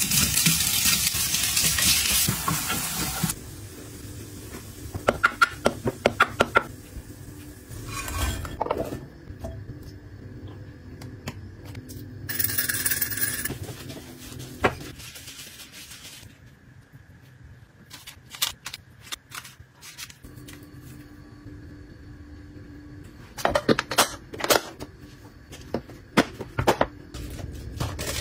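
Cubes of meat sizzling as they drop into a hot frying pan for the first three seconds or so, then scattered clusters of clicks and clinks from utensils against bowls, with a short hiss about halfway through.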